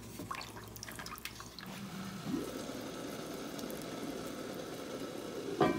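Pot of broth with dehydrated vegetables heating toward a boil: faint liquid bubbling that settles into a steady low hiss after about two seconds. A sharp knock near the end.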